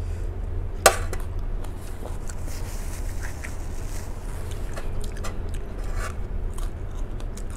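Wooden chopsticks knocking and scraping in a small bowl of sauce, with one sharp clack about a second in, then light scattered clicks and taps, and a bite into crisp lettuce near the end. A steady low hum runs underneath.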